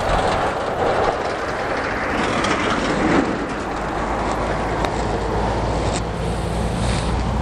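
Rumble of a passing vehicle, loudest about two to three seconds in, with a steady low hum growing stronger near the end.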